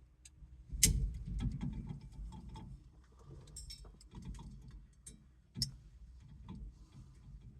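Irregular clicks, taps and light knocks of hand tools and small metal parts being handled while the steering wheel's horn parts are fitted and adjusted, with a sharp knock about a second in and another about five and a half seconds in.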